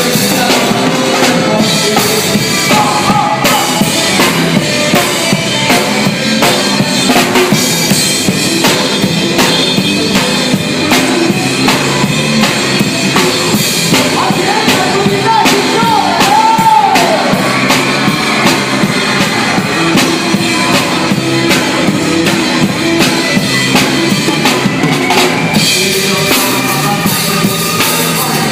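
A song with a drum kit playing throughout, with dense drum strokes over bass and melody lines.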